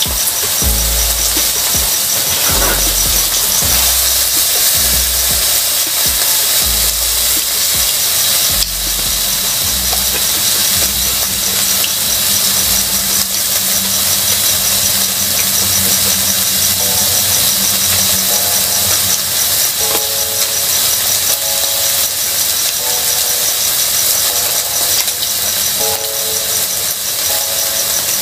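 Grilled lamb chops sizzling on a ridged tabletop grill pan, a steady hiss. Close-up chewing sounds in the first several seconds.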